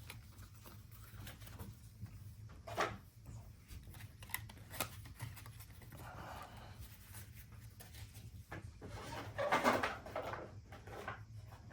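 Trading cards being handled and sorted: light clicks and short rustles of card stock, the loudest rustle near the end, over a steady low hum.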